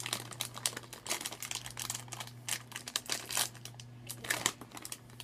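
A clear plastic bag of popcorn crinkling irregularly as it is handled and opened by hand.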